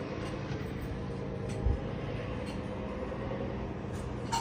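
Heavy diesel engines of large off-road dump trucks running steadily at a distance, a low, even engine drone. A brief low thump about a second and a half in.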